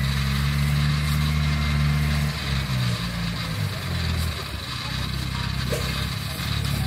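Kubota DC-93 combine harvester's diesel engine running steadily under a steady hiss. The engine note drops about two and a half seconds in and rises back near the end.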